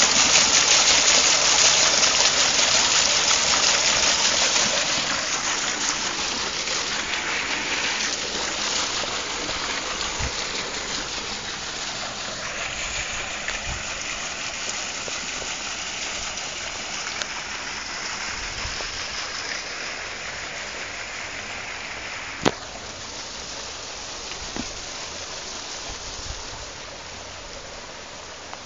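Water jet from a pipe splashing onto the paddles of a small homemade water wheel as it spins: a steady rush of water that grows gradually fainter. One sharp click late on.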